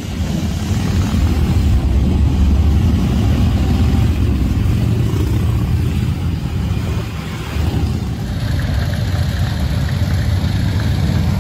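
Many motorcycles riding past in a procession, mostly Harley-Davidson V-twin cruisers, their engines making a steady, low, loud sound. The sound dips and shifts about eight seconds in as a closer group of bikes goes by.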